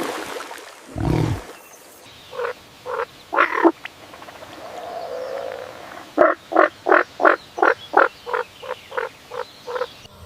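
A frog croaking: a few spaced croaks, then a quick run of about a dozen short croaks at roughly three a second. A brief noisy sound comes before the croaking starts.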